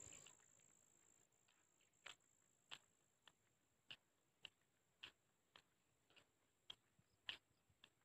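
Faint footsteps on a concrete road, a step about every 0.6 seconds from about two seconds in, over a steady high-pitched insect trill.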